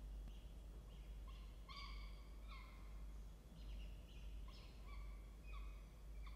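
Peregrine falcon chicks begging: faint, short, high-pitched calls repeated about twice a second, a few of them louder in the middle, over a steady low hum.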